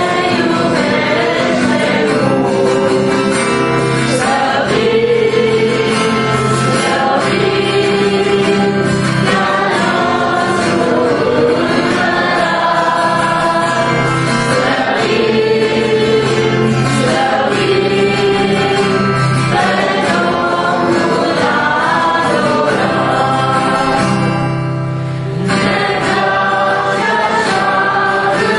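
A hymn sung by women's voices and a man's voice to acoustic guitar. The singing is continuous, with one brief break between lines near the end.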